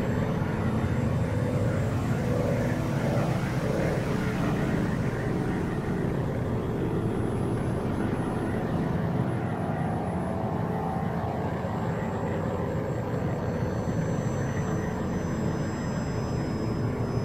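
A steady, low droning rumble, like an aircraft engine heard at a distance, running without a break, with faint high steady tones joining in during the second half.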